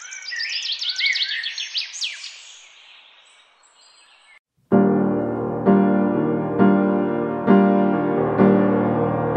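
Birds chirping in a fast run of short rising calls, fading away over about four seconds. After a brief silence, soft piano music begins, with chords struck about once a second.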